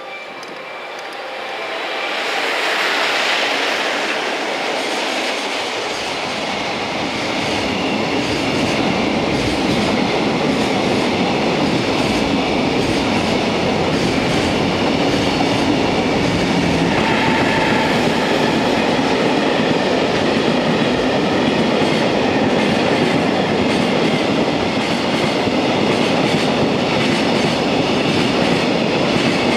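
Container freight train hauled by a JR Freight EF210 electric locomotive passing through close by. The sound builds over the first few seconds as the locomotive comes past, then the long string of container wagons runs by with a steady noise of wheels on rail.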